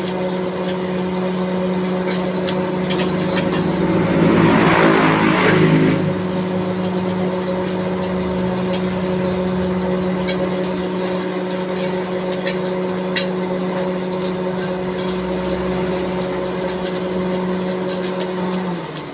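Motor running at one steady speed, with a louder rough, scraping noise on top about four to six seconds in. The motor stops shortly before the end.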